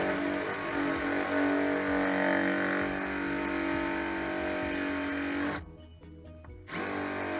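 Electric drill running steadily, stopping about five and a half seconds in and spinning back up a second later, over background music.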